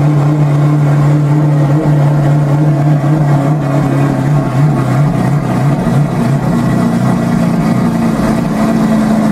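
Lamborghini Aventador LP700-4's 6.5-litre V12 running at a steady idle, its tone shifting a little higher in the last few seconds.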